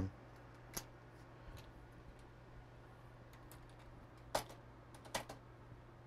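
A few sharp clicks, one about a second in and a small group near the end, over a steady low hum.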